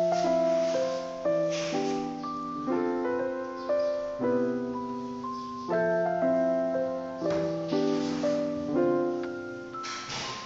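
Background music: piano playing slow chords, each struck sharply and left to ring and fade.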